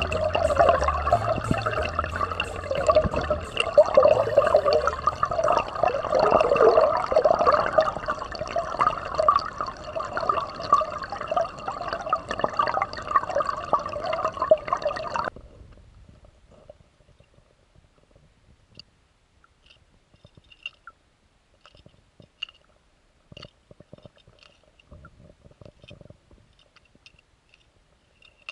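Stream water heard underwater: loud rushing, churning current over rocks. About halfway through it cuts off suddenly, leaving a much quieter underwater background with scattered faint clicks and ticks.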